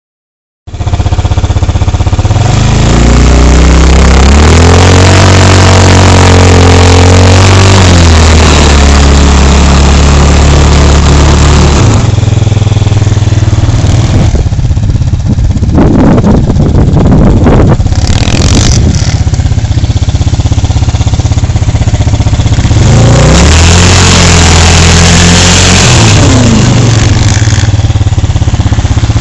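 Adly 320 Taifun quad's engine revving hard while its rear wheels spin and dig into sand. The pitch climbs, holds high for a few seconds, then falls back. It rises again later, with rough, noisy running in between.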